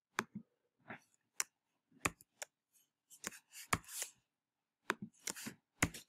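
Computer keyboard keystrokes: scattered sharp clicks at an uneven pace, some in quick pairs.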